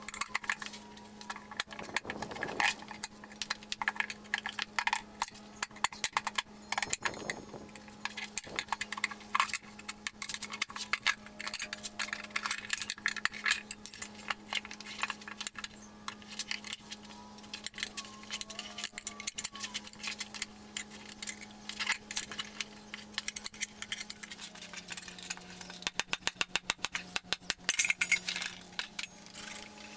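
Irregular small metallic clinks and rattles over a steady low hum, with a quicker run of clicks near the end.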